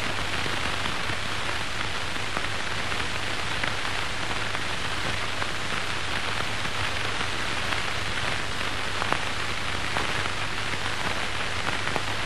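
Steady hiss and crackle of an old film soundtrack, with a low hum underneath and a few faint clicks.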